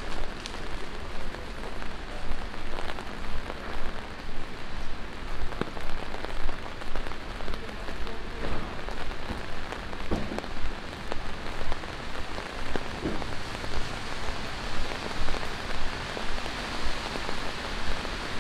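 Steady rain falling on a city street, with an even beat of footsteps on the wet sidewalk, about two steps a second.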